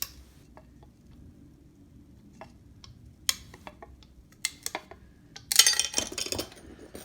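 Scored glass cracking under running pliers as the score line is run along an arc: a few sharp ticks of the break, then a quick run of clinking as the glass gives near the end.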